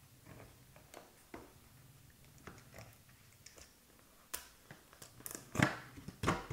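A product box and its packaging being opened and handled by hand: scattered light clicks and rustles, busier in the second half, with two louder crackling knocks near the end.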